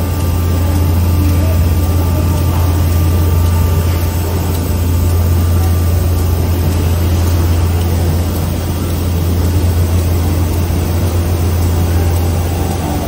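Routech 240 CNC router running under power: a steady, loud low hum with a faint thin whine above it, unchanging throughout, with no cutting or impact sounds.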